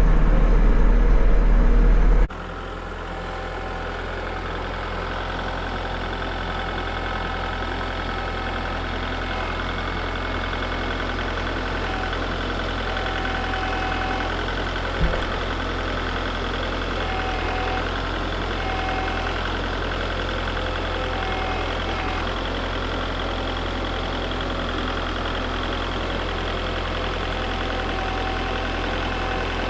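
Kubota MX6000 diesel tractor engine running steadily, with a single sharp click about halfway through. A louder sound cuts off abruptly a couple of seconds in.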